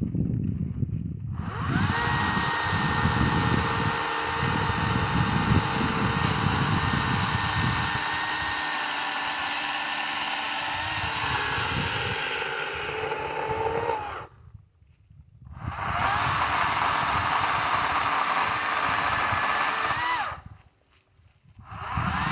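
Kobalt 40V Max cordless electric chainsaw running with a steady high whine, the chain cutting into wood with a rough crackle in the first part. The motor stops twice for about a second and starts again each time.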